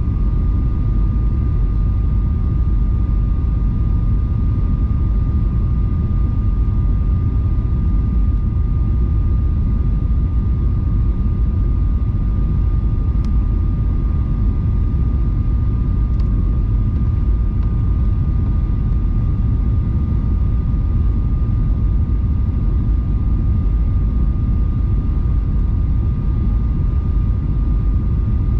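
Airliner cabin noise on final approach: a steady rumble of engines and airflow, with a thin steady whine above it.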